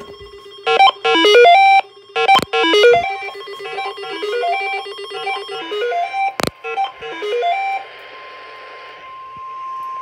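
Several NOAA weather radios sounding their alert alarms together: a steady tone under rising and falling beep melodies, with a few sharp handling knocks. About eight seconds in, the beeps give way to the broadcast's steady 1050 Hz warning alarm tone over radio hiss.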